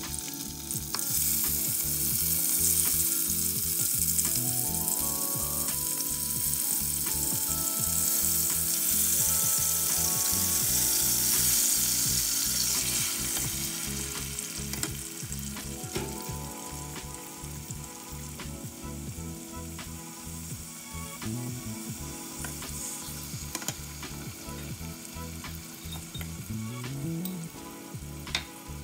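Tomato wedges sizzling in hot cooking oil in a pot, with a wooden spoon stirring them. The sizzle is loudest through the first dozen or so seconds, then eases off to a softer frying.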